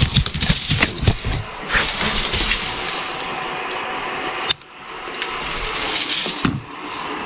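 Artificial Christmas tree branches rustling and crackling as their plastic needles are spread and fluffed by hand, with a sudden short pause about four and a half seconds in.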